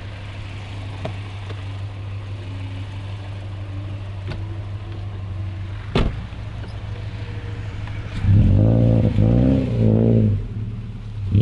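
Subaru Forester's flat-four boxer engine running at low revs as the car crawls through a deep mud rut, with one sharp knock about six seconds in; about eight seconds in the engine revs hard in rising and falling pulses as the car pushes through the mud.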